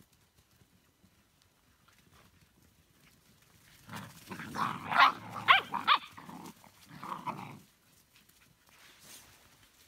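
Briard dogs at play, puppies with an adult: a burst of growling and yelps starting about four seconds in and lasting nearly four seconds, loudest in the middle.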